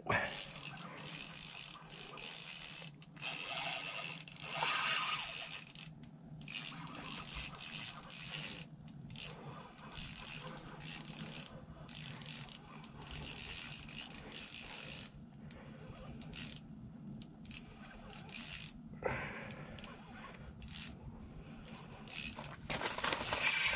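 Ice-fishing reel clicking and rasping in irregular spurts as line is reeled in and drag is given while a big northern pike fights on the line. A low steady hum runs underneath.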